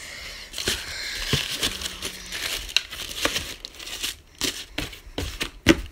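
Paper crinkling and rustling as shoe-box tissue paper is handled, with irregular clicks and a sharper knock near the end.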